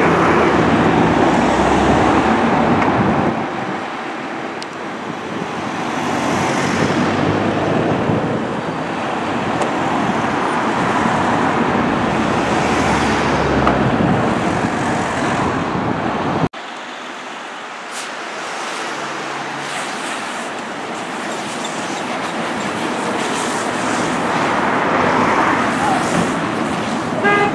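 Fire engine running to power its pump while a hose stream of water sprays onto a burning generator, a steady loud rush of engine and water noise. A cut about halfway through drops the deep rumble, leaving mostly the higher rushing noise.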